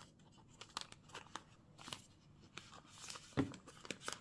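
Faint rustling and small clicks of hands handling plastic packaging, with a louder knock a little over three seconds in.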